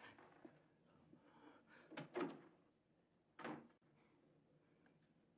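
A door shutting with a short knock about two seconds in, then a softer knock over a second later, against near-silent room tone.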